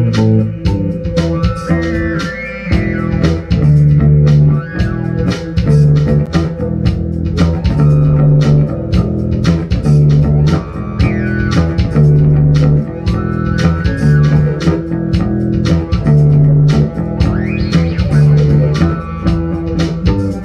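Instrumental funk tune played by a band: electric bass guitar repeating a low riff with keyboards over a steady beat, with some sliding higher notes.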